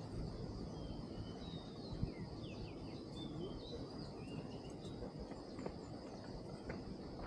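Outdoor ambience: a steady high insect drone with several short bird chirps and whistles over a low rumble.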